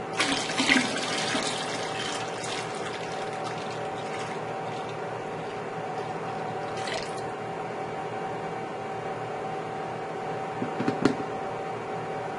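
Lye solution poured from a plastic pitcher into a stainless steel stockpot of melted soap oils: a splashy start, then a steady pouring stream, over a steady hum. A few sharp knocks come near the end.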